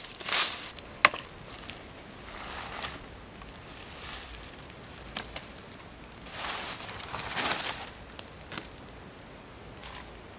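Dry fallen leaves and twigs crunching and rustling in irregular bursts, with a sharp snap about a second in.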